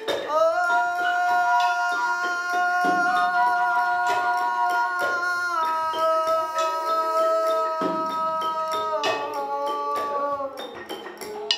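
Male voice singing long held notes that shift in pitch a few times, over regular struck percussion hits.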